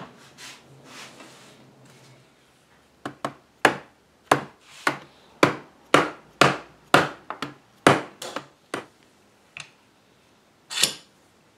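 A mallet knocking on a mahogany chair frame to drive its joints apart for salvaged parts. About a dozen sharp wooden knocks come at roughly two a second from about three seconds in, and one last sharp crack sounds near the end.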